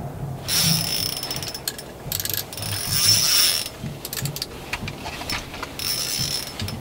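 Spinning reel on an ice-fishing jig rod ratcheting in three long bursts of rapid clicking with a high whine, and single clicks between them, as a northern pike is fought on the line.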